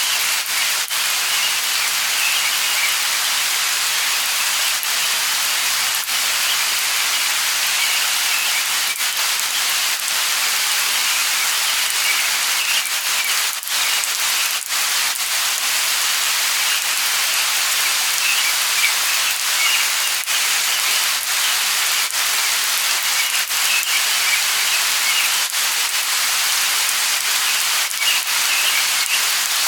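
Steady hiss of light rain, with short high bird chirps heard in clusters every few seconds.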